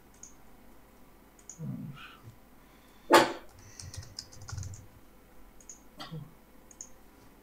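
Typing on a computer keyboard: scattered keystroke clicks in small runs. One short, loud, sharp sound about three seconds in stands out above the typing.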